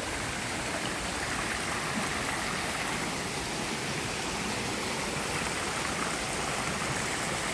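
Steady rush of running water from a rocky forest creek fed by a waterfall a short way upstream.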